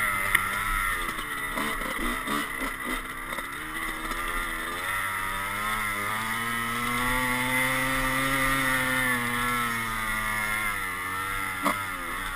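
Dirt bike engine heard from the rider's helmet under wind rush, its pitch wavering with the throttle, rising to a held peak mid-way and easing off toward the end. A short knock near the end.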